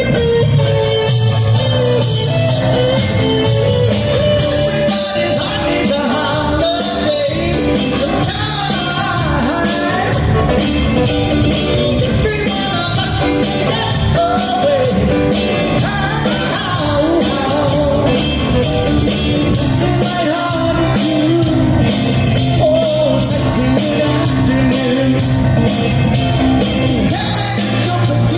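Live rock band playing a song with a lead vocal, electric guitar and a steady drum beat.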